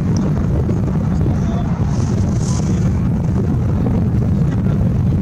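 Steady low wind rumble on the microphone, with people's voices in the background.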